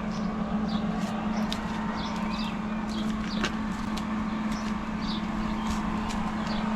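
A steady low mechanical hum, with scattered faint high chirps and ticks over it.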